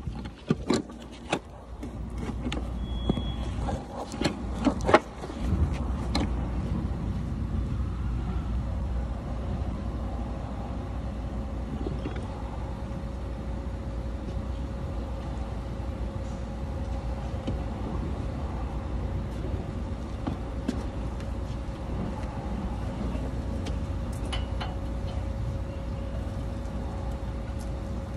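A few sharp knocks and clatters in the first few seconds, then a steady low vehicle engine rumble. A faint steady hum tone joins about two-thirds of the way through.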